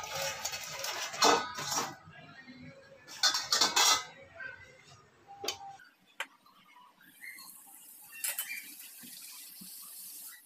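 Steel utensils clattering and clinking against a steel bowl and pan several times. About seven seconds in, a puri frying in hot oil in a kadhai starts a steady high sizzle.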